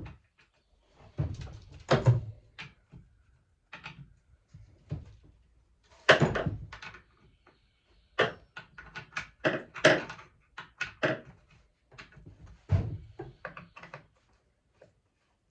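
Irregular knocks, clicks and clatter of metal parts being handled while working on a chainsaw's chain and bar, with a quick run of clicks about three or four a second in the middle and a few heavier knocks.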